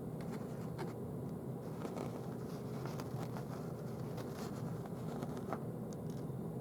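Steady low background hum with a few faint, scattered clicks and light handling noises.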